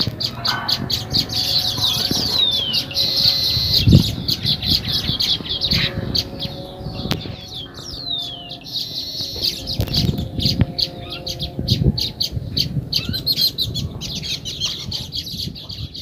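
Baya weaver colony chattering: a dense run of rapid, high chips with two falling, wheezy whistles. A few low dull thumps sound under it, the loudest about four seconds in.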